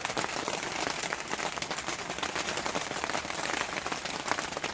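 Heavy rain falling: a dense, even patter of many fast raindrops hitting a surface.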